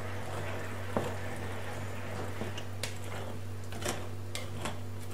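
Wire balloon whisk working through cake batter in a glass bowl: soft wet squishing with a few scattered clicks of the wires against the glass.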